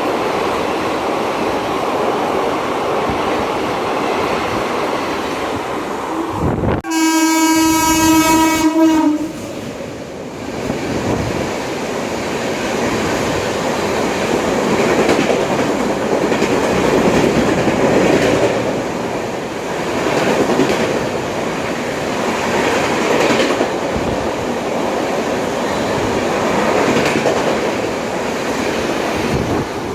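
A passing train runs steadily with its wheels clattering over the rail joints. About six and a half seconds in, it gives one horn blast of about two seconds on a single pitch.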